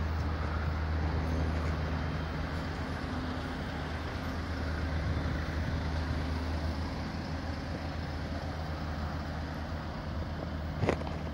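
Steady low hum of road traffic at a railway level crossing, with cars waiting and idling. A sharp knock comes near the end.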